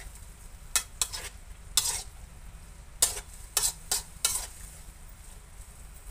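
Metal ladle scraping and clanking against a metal wok as mixed vegetables are stir-fried, about eight quick strokes, mostly in the first half. Faint sizzling of the vegetables frying underneath.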